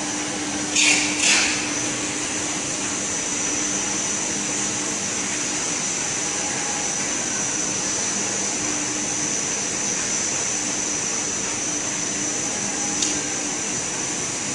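EPE foam laminating machine running steadily: an even mechanical whir with a constant high whine and a low hum. Two short loud hissing bursts come about a second in, and a smaller one near the end.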